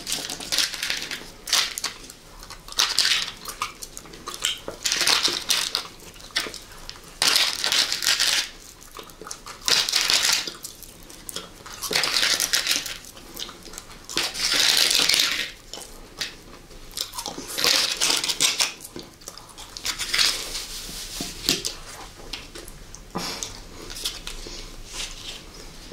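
Close-miked crunching and chewing of candy, in a run of crunchy bursts about every one to two seconds.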